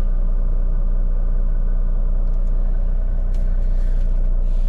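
Steady low drone of a semi truck's diesel engine idling, heard from inside the sleeper cab, with a few faint small clicks partway through.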